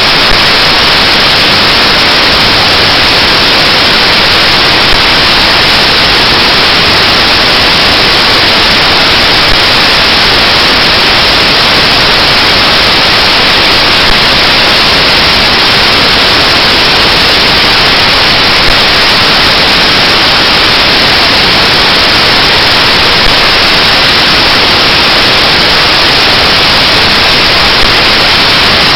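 Loud, steady hiss like static or white noise, even and unchanging throughout.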